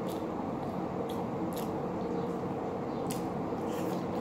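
Faint wet clicks and smacks of fingers pulling flesh off a cooked milkfish head and of eating it by hand, a few scattered ticks over a steady low background hum.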